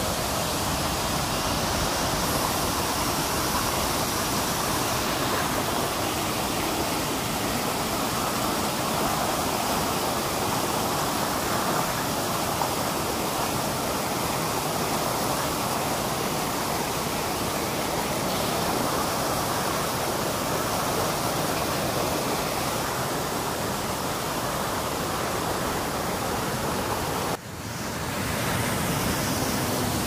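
Steady rush of river water tumbling over rock cascades and rapids. The sound briefly drops out about three seconds before the end.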